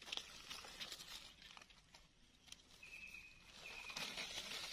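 Faint rustling and crackling of dry leaf litter as a knife cuts a red Russula mushroom free at the base of its stem. Two short high steady notes sound a little under three seconds in.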